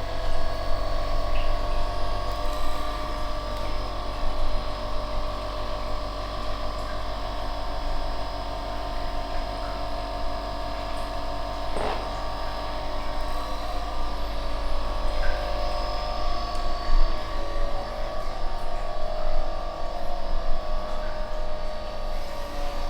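Steady electric hum with several held tones, and a single short click about twelve seconds in.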